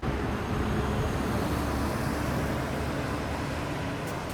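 Steady road noise of a car being driven, heaviest at the low end, cutting in suddenly at the start.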